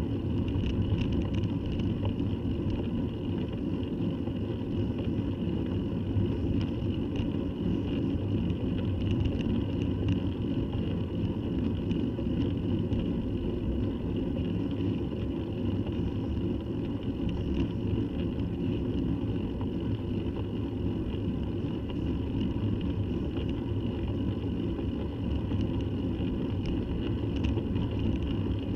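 Steady low rumble of wind and road noise on a bicycle-mounted camera riding up a tarmac lane, with faint scattered ticks.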